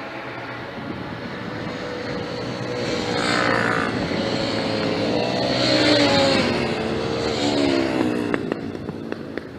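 A high-revving track motorbike passing at speed. Its engine note builds to its loudest about six seconds in, then drops in pitch and fades as it moves away, with a few sharp cracks near the end.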